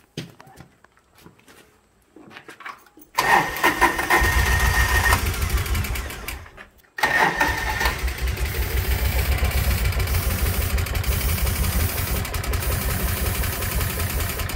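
2008 Kawasaki Mule's engine cranked by its starter: it catches about three seconds in, runs briefly and dies, then cranks and catches again and keeps running steadily. It is running on starting fluid sprayed into the intake, because a cracked fuel line by the fuel pump is sucking in air and starving it of fuel.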